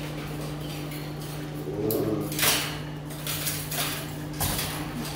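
Puppies scuffling and moving about on a tile floor: scattered scrapes and light knocks, a loud scuffing rustle about two and a half seconds in and a thump near the end, over a steady low electrical hum.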